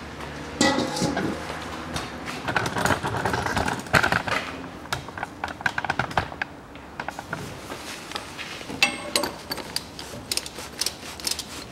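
Ratchet handle with a 36 mm socket working on the plastic oil filter housing cap under a Volkswagen Passat B6's 2.0 petrol engine, clicking in quick runs in the second half as the cap is undone to drain the oil. Before that comes metal clatter and scraping as the tools and drain basin are handled.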